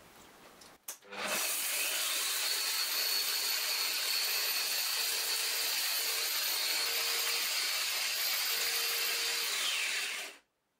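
Angle-grinder motor driving a blade in the bottom of a stainless steel pot, grinding dried corn kernels into meal. After a click it starts about a second in and runs steadily at full speed with a high whine, then cuts off sharply just before the end.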